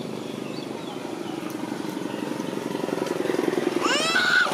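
A small engine running steadily, slowly getting louder, with a short rising high-pitched call near the end.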